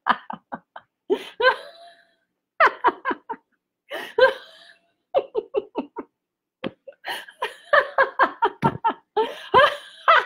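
A woman laughing aloud in repeated bouts of quick "ha-ha" pulses with short pauses between them. It is a put-on belly laugh demonstrating laughter for no reason, not a real laugh.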